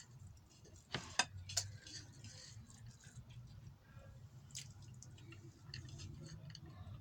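Close-up eating with bare hands: wet chewing and mouth sounds, with a cluster of sharp clicks about a second in and scattered smaller ticks, over a low steady hum.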